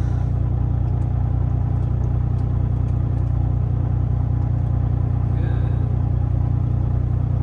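Kenworth semi truck's diesel engine idling, heard from inside the cab as a low, steady sound.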